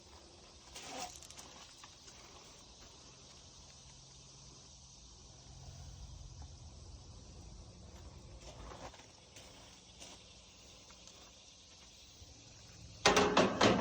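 Faint steady chirring of outdoor insects, with a few soft handling rustles, then a quick run of sharp knocks and clatter near the end, the loudest sound.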